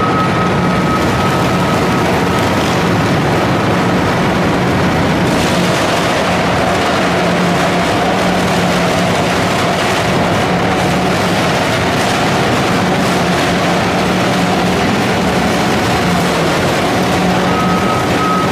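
Lindner 95DK mobile shredder, powered by a Cat C18 diesel, running under load while shredding wooden telephone poles: a loud, continuous engine drone under a grinding din. A thin high whine fades out about two seconds in and comes back near the end.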